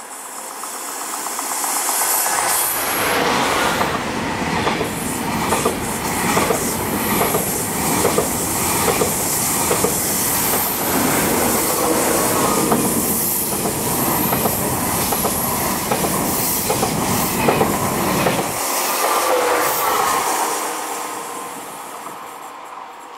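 TGV high-speed train passing close by at speed: the rumble builds over the first few seconds, runs loud with rapid wheel clatter for about fifteen seconds, then fades as the train draws away.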